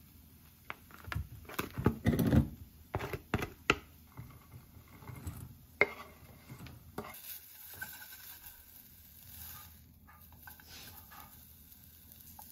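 Chopsticks knocking and scraping ground pork out of a foam tray into a stainless steel mixing bowl: a quick run of sharp clatters. About six seconds in comes a single sharp click, then softer scraping as chopped leek is pushed off a wooden cutting board into the bowl.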